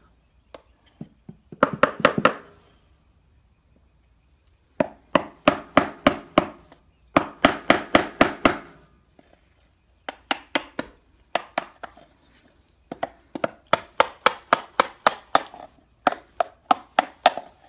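A hammer driving a wood chisel into a wooden door jamb to cut the recesses for the door hinges. The taps come in quick runs of about five a second, with short pauses between the runs.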